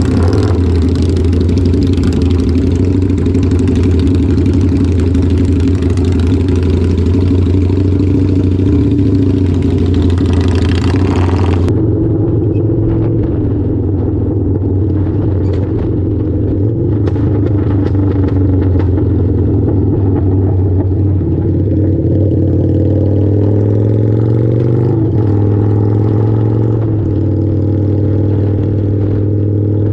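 Harley-Davidson V-Rod's V-twin engine running steadily at a low speed. A loud hiss over it stops abruptly about twelve seconds in, and the engine note rises slightly a few times in the second half.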